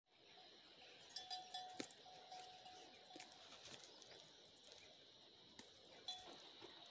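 Quiet sounds of a horned goat grazing: faint crunches, clicks and rustles as it tears and chews leaves, with a faint ringing tone between about one and three seconds in.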